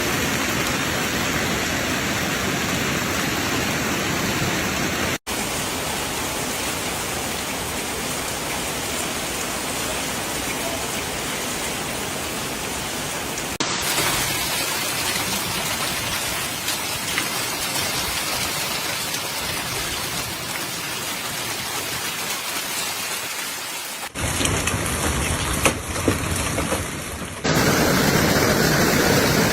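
Heavy storm rain pelting down on surfaces: a dense, steady hiss-like roar. Several separate clips are joined by abrupt cuts about five, fourteen, twenty-four and twenty-seven seconds in, and the last clip is louder.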